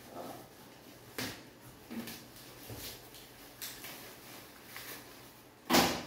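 Plastic-bagged tubs being handled and unwrapped in a cardboard box: scattered crinkling rustles and light knocks, with one louder rustle near the end.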